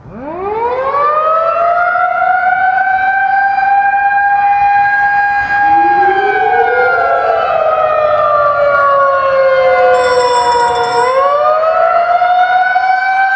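Civil defense siren winding up from silence to a steady wail, then sliding down in pitch from about six seconds in while a second, rising tone crosses it, and winding back up near the end. It is sounded as a nuclear attack warning.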